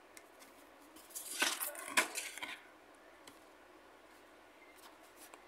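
Stiff cardboard lotería boards being handled. A short burst of rustling and scraping starts about a second in, with a sharp click near two seconds, then a few faint ticks.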